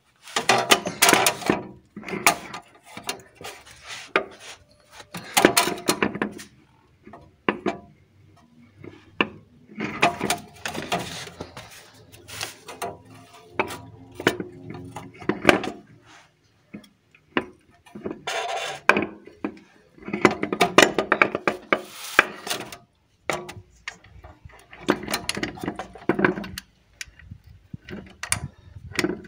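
Metal clanks, knocks and scraping as an engine flywheel is handled and seated onto the crankshaft flange and its bolts are fitted by hand. The knocks come in irregular clusters with short pauses between them.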